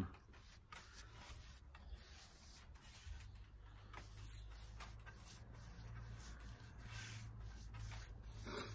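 Paintbrush bristles scratching softly along a rough-sawn pallet board in a series of short strokes as thick wood stain is brushed on, with one slightly louder scrape near the end. A low steady hum lies underneath.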